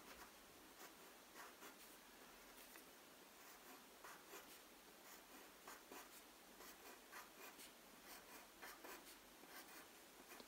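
Wooden pencil scratching faintly on paper in many short, irregular strokes, drawing a zigzag diamond pattern.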